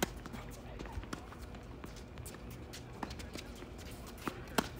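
Tennis racquets hitting the ball during a doubles rally: sharp pops at the start, about a second in, about three seconds in and twice close together near the end, the last the loudest. Footsteps sound on the hard court between the shots.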